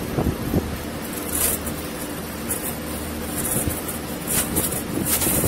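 Brazing torch flame hissing steadily on a copper pipe joint at a refrigeration compressor's fitting, over a steady low machine hum.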